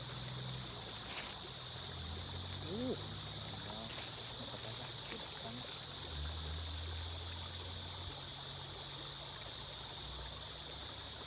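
Steady high-pitched outdoor hiss at a riverbank, with a low hum beneath it and a short rising-and-falling whistle-like call about three seconds in.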